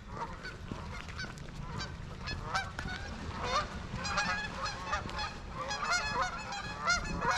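A flock of waterfowl calling, with many short calls overlapping and growing busier after the first second or so.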